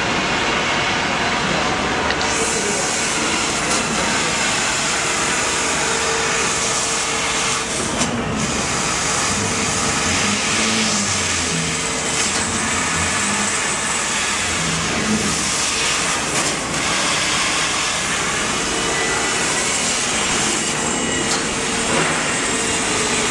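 CNC metal laser cutting machine at work cutting sheet metal: a steady loud hiss with a faint hum that comes and goes.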